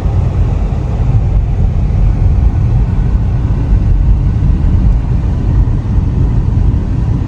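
Steady low rumble of a car driving, road and engine noise with no distinct events.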